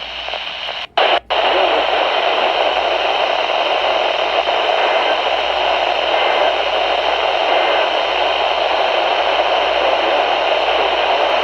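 Loud, steady radio static hiss from a receiver once the broadcast voice has stopped, cut by two brief dropouts about a second in.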